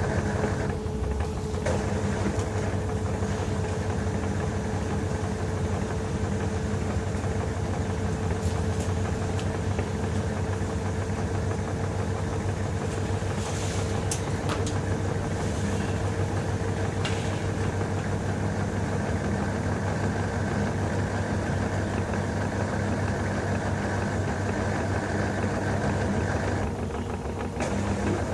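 LG TurboDrum WT-R852 top-load washing machine running with a bedding load: a steady motor hum with a thin whine that slowly rises in pitch, dipping briefly about a second in and again near the end.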